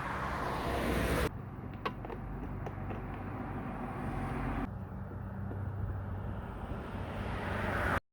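Outdoor background noise, a steady rumble and hiss, that changes abruptly twice, with a few faint clicks a couple of seconds in, and cuts off suddenly near the end.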